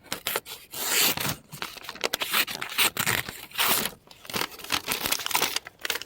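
Scraping and rustling from handling, in irregular bursts of a second or less, with a few sharper clicks.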